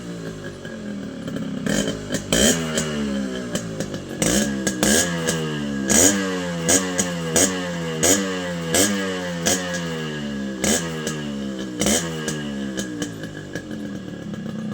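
Yamaha RX100's single-cylinder two-stroke engine revved in repeated quick throttle blips, each rev climbing sharply and falling back toward idle, more than a dozen in a row.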